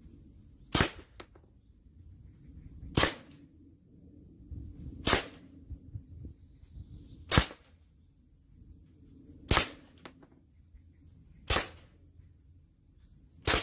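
Umarex M1A1 Thompson CO2 airgun firing single shots of 4.4 mm copper-plated lead balls, seven sharp cracks about two seconds apart, each followed by a fainter click.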